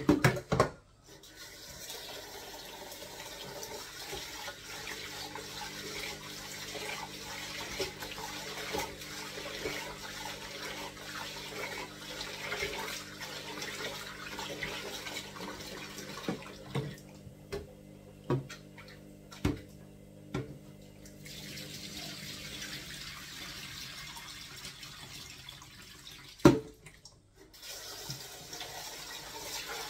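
Kitchen tap running into a sink, stopping for a few seconds past the middle and again briefly near the end, with a few sharp clinks and knocks of things being handled, the loudest just before the second stop.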